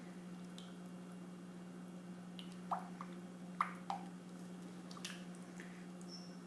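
A few soft drips and wet splats of raw cold process soap batter being portioned into cups, heard as three short clicks near the middle over a steady low hum.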